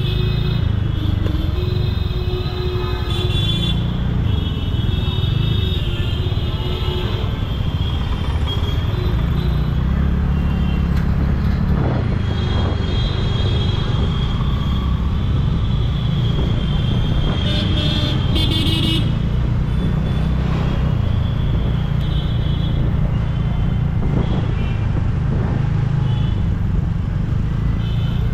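Busy street traffic heard from a slow-moving scooter: a steady low rumble, with other vehicles' horns tooting in short spells again and again.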